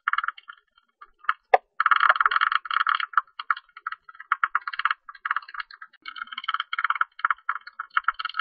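Tube-nosed bat calling: rapid buzzing chatter in bursts, with short gaps between them. There is one sharp click about one and a half seconds in.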